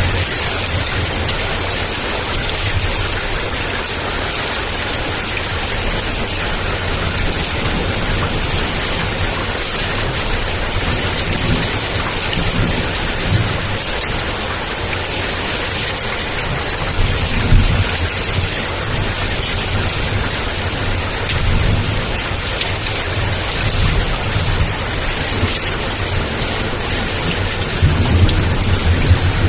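Heavy rain pouring steadily, with low thunder rumbling in swells through the second half, loudest about two-thirds of the way through and again near the end.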